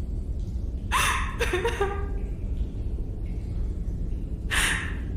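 Dark cave-ambience background rumbling low and steady, under a performer's vocal sounds: a quick breath and short whimper about a second in, then a sharp gasp near the end.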